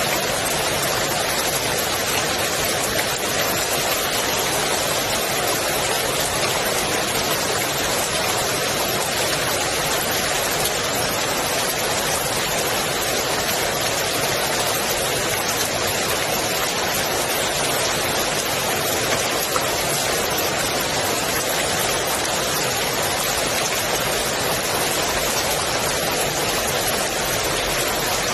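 Steady rain falling on the water of a swimming pool: a dense, even hiss of drops that does not change.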